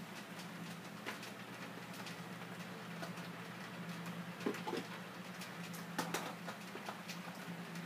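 A low steady hum with faint scattered clicks and ticks, a few of them louder about four and a half and six seconds in.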